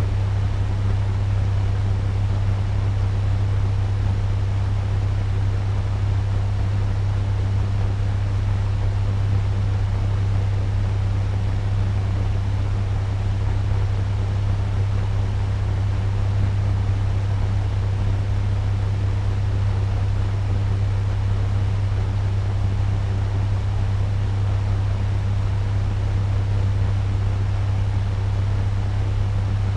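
Turbo fan running steadily at medium speed: an even rush of air over a strong, constant low hum.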